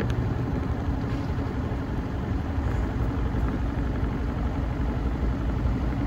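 Front-loading washing machine on its spin cycle, the drum spinning at high speed with a steady low hum and rumble.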